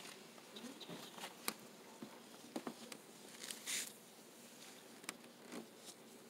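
Faint rustling of a towel and gloved hands rubbing a newborn dry, with scattered light clicks and a brief louder rustle a little past the middle.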